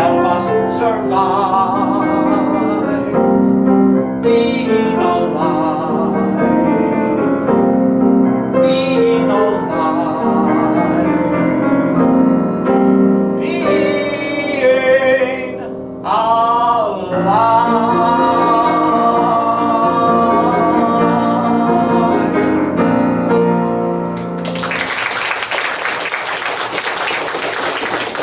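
A man singing with piano accompaniment, his voice wavering with vibrato and ending on a long held note. Applause from a small audience breaks out near the end.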